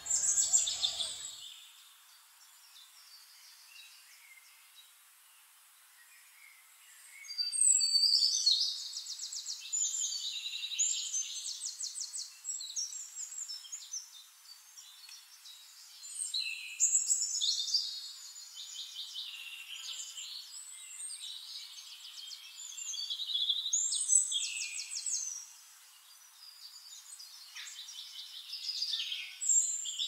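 Small songbirds singing high, fast trilled phrases in bursts a few seconds apart, over a faint background hiss.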